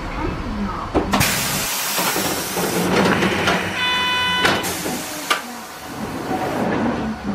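Sapporo streetcar 240-type's compressed-air gear venting: a click about a second in, then a loud air hiss lasting about five seconds. About halfway through a short buzzer tone sounds, and further clicks come near the end of the hiss.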